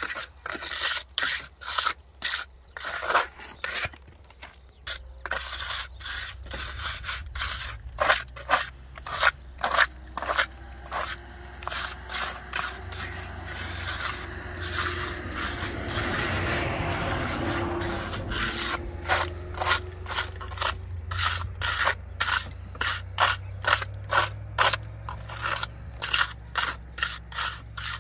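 Hand plastering float scraping over a wall as wet mud plaster is spread and smoothed, in repeated strokes about one and a half a second. Around the middle the strokes thin out under a steady rushing noise for a few seconds.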